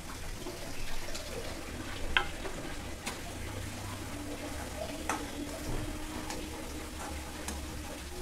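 Grated cauliflower frying in oil in a metal kadhai as a spatula stirs it: a soft sizzle, broken by a few sharp scrapes and taps of the spatula against the pan.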